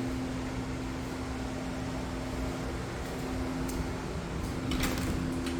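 A steady mechanical hum with a constant low tone under a soft hiss, with a faint click or two near the end.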